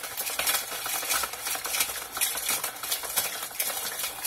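A utensil stirring quickly in a container: a steady, dense run of small scrapes and clicks.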